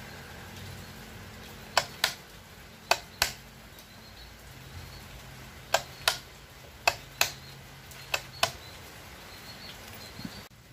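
Sharp clicks in pairs, the two clicks about a third of a second apart, five pairs spread over several seconds, from hand work on small electrical parts while a control box is wired. A low steady hum runs underneath.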